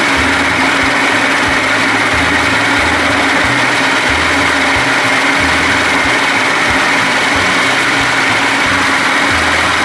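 70 hp Johnson two-stroke outboard motor running steadily after starting on its newly wired push-button start.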